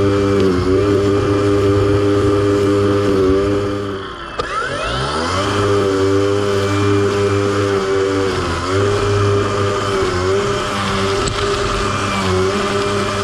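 John Deere E120 riding lawn mower's engine running steadily. Its pitch sags briefly a few times, with a deeper drop about four seconds in before it climbs back up.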